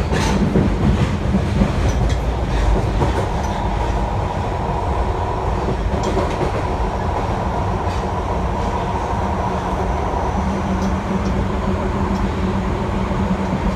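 Osaka Metro 30000 series subway train heard from inside the car while running: a steady rumble of wheels on rail with a few rail-joint clicks near the start, over a steady hum from its Hitachi IGBT traction equipment. The low hum grows stronger about ten seconds in.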